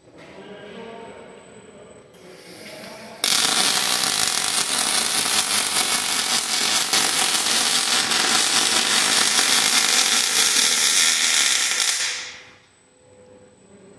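Robotic MIG welding torch on a KUKA arm striking an arc on steel tubing about three seconds in and welding with a loud, steady crackle for about nine seconds, then cutting out shortly before the end. Quieter machine sound and a hiss come before the arc starts.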